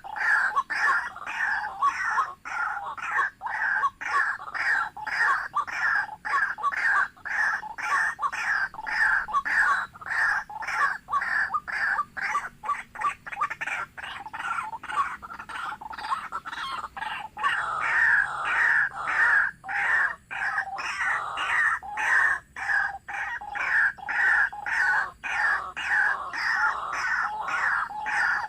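White-breasted waterhen (ruak-ruak) calling: an unbroken run of short harsh notes repeated about two to three times a second.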